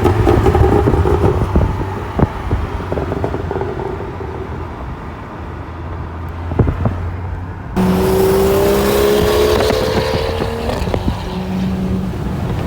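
Turbocharged BMW 535i with aftermarket downpipes and mufflers running, its exhaust giving a few sharp pops over the engine note. About eight seconds in the sound changes suddenly to a louder, brighter engine note that rises slowly in pitch.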